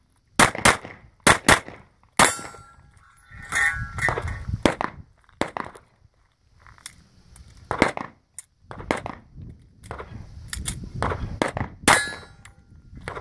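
Rapid pistol shots from an FN FNX-45 Tactical firing .45 ACP, mostly in quick pairs, with two short pauses. Several shots are followed by the ringing clang of a steel target being hit.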